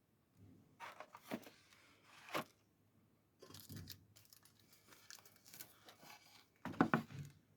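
Objects being handled: irregular rustling and crinkling, like packaging being moved, with a few sharp clicks and knocks.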